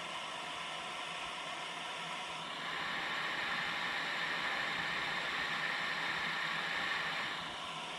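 River water rushing over a concrete weir: a steady rush that gets louder about two and a half seconds in and eases back near the end.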